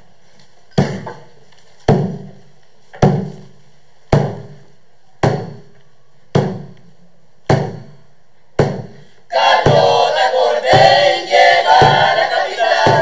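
Eight slow, heavy thuds, about one a second, each ringing out briefly. About nine seconds in, a chorus of voices begins singing.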